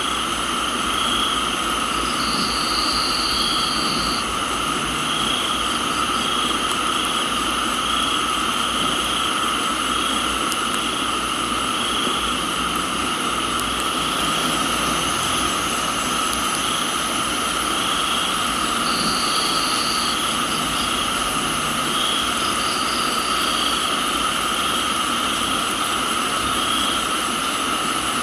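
Crickets and other insects calling together in a tropical garden: several steady trills at different pitches, one swelling and fading about once a second. A higher trill joins for a second or two at a time, a few times. Under them runs an even hiss of rain.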